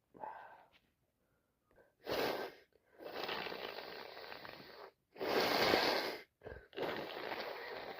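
A person with a head cold blowing her nose hard, in long blows of one to two seconds each, with short sharp sniffs or snorts between them.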